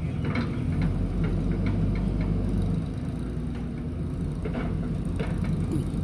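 JCB backhoe loader's diesel engine running steadily. It is louder for the first few seconds and then eases off, with scattered light metallic knocks over it.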